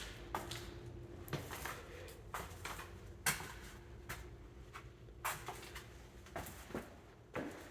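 A series of short knocks and clicks at an uneven pace, about two a second, over a faint steady hum.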